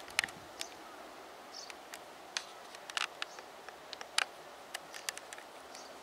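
A dozen or more sharp clicks and light snaps at uneven intervals over a faint, steady outdoor background.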